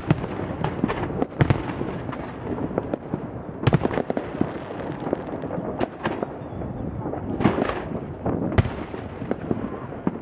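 Aerial fireworks shells bursting overhead: a string of sharp bangs at irregular intervals, roughly one every second or so, with steady noise between them.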